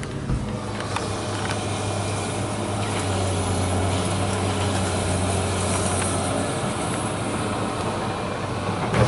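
Engine running steadily with a low, even drone, with a few faint knocks.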